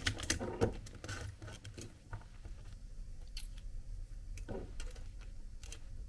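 Faint, scattered clicks and light taps of small objects being handled: a razor blade and coax cable being picked up and worked at a bench.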